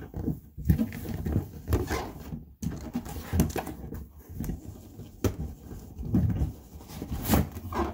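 Large cardboard box being handled and opened: irregular scuffing, rubbing and knocking of cardboard as the printed outer sleeve is shifted and slid.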